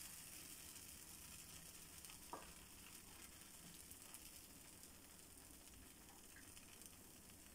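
Faint, steady sizzle of a buttered pizza base frying in a non-stick pan over a low flame, with one light tick about two seconds in.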